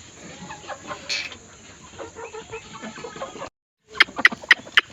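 Chickens clucking, with scattered short calls and scuffling. After a brief break, a fast, even run of sharp clicks starts, about four a second.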